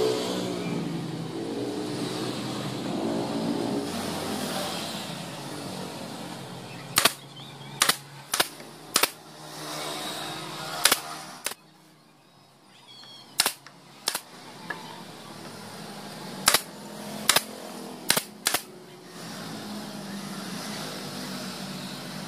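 Pneumatic brad nailer firing about a dozen times at an irregular pace, sometimes two shots in quick succession, driving nails through a hardwood strip into a plywood base. A steady motor drone runs before the shots begin.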